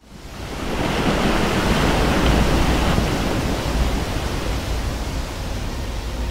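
Rushing water noise with a deep rumble underneath. It fades in over the first second and eases slightly after about three seconds.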